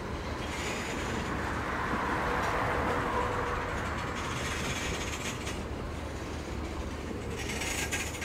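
Freight cars of a climbing Norfolk Southern train rolling past, wheels rumbling steadily over the rails. Three short spells of high metallic wheel noise come through: near the start, in the middle and near the end.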